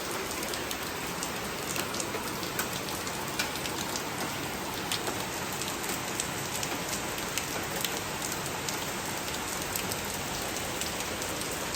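Steady rain falling, an even hiss with many separate drop hits landing on a surface.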